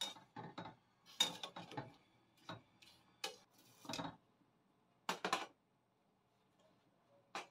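Perforated metal spoon clinking and scraping against a metal pot while stirring beef chunks in boiling water: irregular knocks, several in quick clusters in the first two seconds and again about five seconds in.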